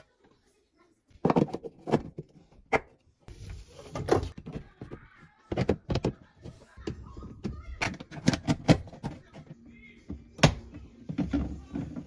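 Irregular sharp clicks and knocks of a tool and plastic parts being handled in a dishwasher's drain sump while it is cleared of a clog, with a low rumble between the knocks. The sounds begin about a second in.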